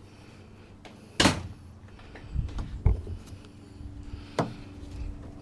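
Rear cargo door of a Ram ProMaster van being handled. A sharp metallic clunk comes about a second in, then a few softer thumps and clicks.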